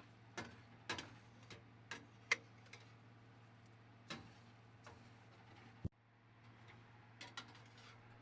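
Scattered light clicks and taps of kitchenware in a small galley, over a low steady hum; the background drops out abruptly about six seconds in and returns.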